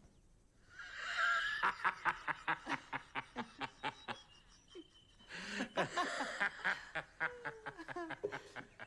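People laughing: two long bouts of rhythmic, pulsing laughter, the first starting about a second in and the second a little after halfway.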